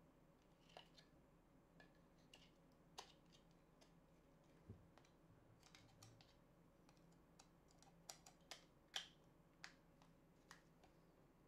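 Faint, irregular clicks of the YC Onion Energy Tube LED light's control buttons being pressed and the tube being handled, as it cycles through its colours. The loudest click comes about nine seconds in.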